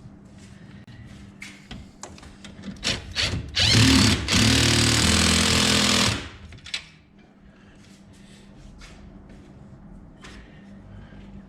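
Cordless impact driver running for about two and a half seconds, spinning up and then running steadily as it drives a bolt, with small knocks of parts and tools being handled before and after.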